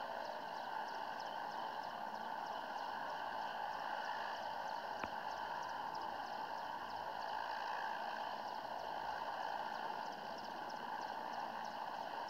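Mi-17 helicopter running, its twin turboshaft engines and rotor making a steady rushing noise. A single sharp click about five seconds in.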